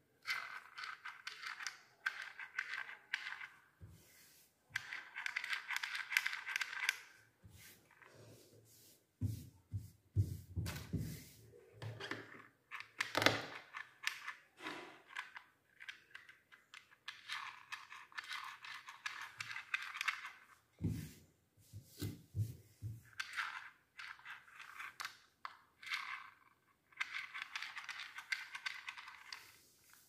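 Handheld mini fan switched on in bursts of a few seconds, its small motor and plastic blade whirring, with clusters of low knocks from handling in between.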